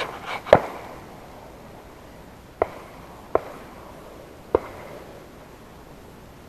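Four shotgun shots from other hunters: a loud one about half a second in, then three more spread over the next four seconds, each with a short echoing tail.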